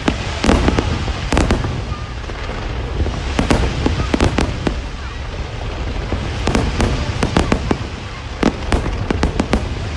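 Fireworks bursting in irregular sharp bangs and crackles, some in quick runs of several, over a steady low background noise.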